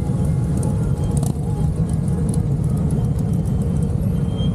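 Motorcycle engines running at low speed, a steady low rumble as a group of bikes idles and rolls slowly past.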